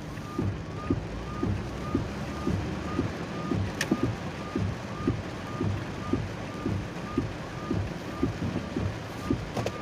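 Car interior while driving in heavy rain: a steady wash of rain and road noise, with a regular beat of about two soft thumps a second, each with a short chirp. There is a single sharp click about four seconds in.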